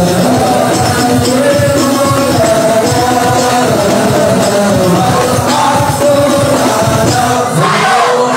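A young man's solo voice singing an Islamic devotional song (sholawat) through a microphone and PA, in long, ornamented melodic lines over musical accompaniment.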